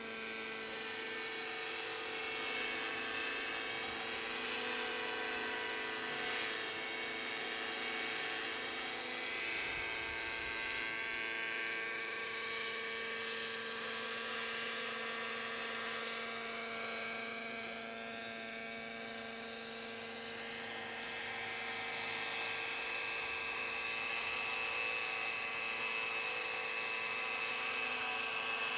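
Knight 50 3D radio-controlled model helicopter flying: a continuous high engine-and-rotor whine with several steady tones, its pitch drifting a little as it manoeuvres, growing louder over the last few seconds as the model comes down low.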